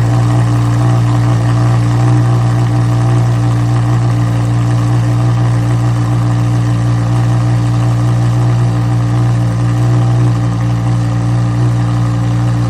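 Lamborghini engine sound effect idling steadily, holding one low pitch without revving.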